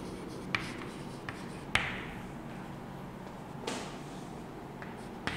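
Chalk on a blackboard as a word is written: several short, sharp taps and strokes, the loudest about two seconds in.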